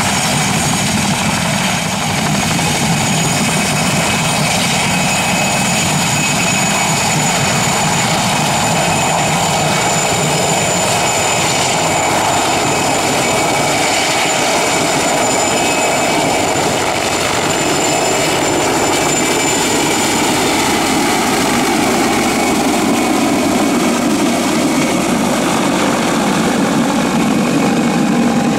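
PZL Mi-2 helicopter's twin turboshaft engines and rotor running at power as it lifts off and climbs away, with a steady high turbine whine that fades after about twenty seconds.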